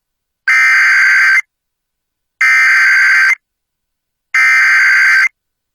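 Emergency Alert System SAME header: three identical bursts of about one second each of buzzing digital data tones, about a second apart, announcing a National Weather Service severe thunderstorm warning.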